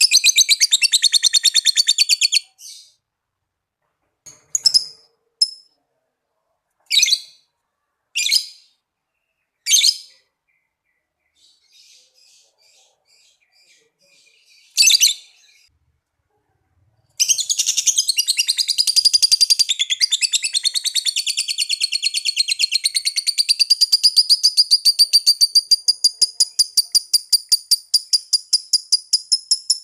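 Lovebird chattering in a long, rapid, shrill trill of evenly spaced high notes (the 'ngekek'). The trill breaks off about two seconds in, and a few single sharp chirps follow. A second long trill starts about halfway through and runs on.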